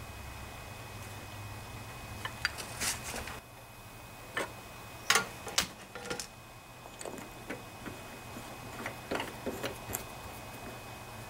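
Scattered small metallic clicks and knocks of a Walbro carburetor's float bowl and bowl nut being handled and set in place, with a socket fitted onto the nut; the sharpest knocks come about five seconds in.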